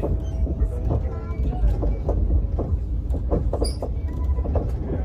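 A train running with a steady low rumble, with people talking over it and a few light clicks and knocks.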